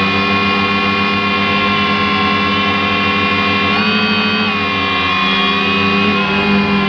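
DJI Phantom quadcopter's motors and propellers whirring steadily, picked up by the drone's own onboard camera, with slight shifts in pitch about four seconds in and again near the end as the drone adjusts its flight.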